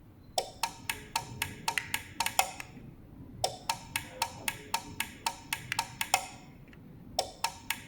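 Rapid sharp clicks, about four a second, in three runs with short pauses between, as a garage door remote's buttons are tested against the opener.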